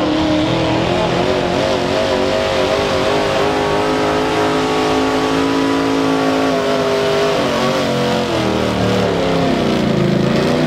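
Small-block V8 pickup engine held at high revs under the load of a weight sled, its pitch wavering. About eight seconds in, the revs fall away as the pull ends.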